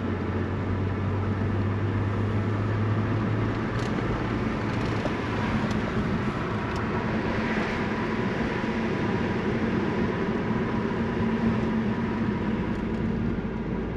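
A car being driven, heard from inside the cabin: steady engine and road noise. A low engine hum gives way to a higher steady drone about five seconds in.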